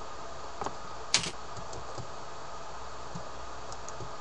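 Two short computer mouse clicks, a faint one and then a louder one about a second in, the louder one the click sound that the screen recorder adds, over a steady low hiss.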